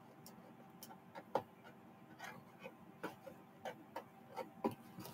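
Fingers handling and picking at the taped flaps of a cardboard shipping box: scattered light clicks and taps, with two sharper knocks, one about a second and a half in and one near the end.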